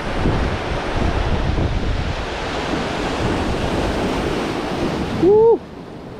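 Ocean surf washing over jetty rocks, with heavy wind buffeting the microphone. Near the end comes a brief call that rises and then falls, and the wind noise suddenly drops away.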